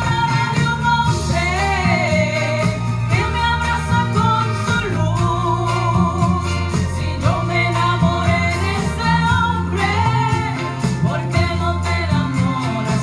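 Live Christian praise song: voices singing a melody over an amplified band, with a strong bass line underneath.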